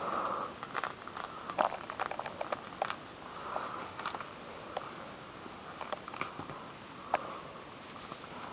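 Thick pummelo rind being pulled and torn off the fruit by a hand in a rubber glove: irregular crackles and small snaps with the rustle of the glove.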